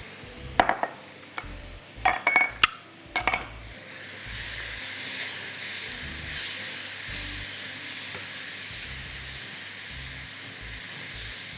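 Red pumpkin pieces going into a pan of hot oil: a few sharp knocks against the pan in the first few seconds, then steady sizzling as the pumpkin starts to fry.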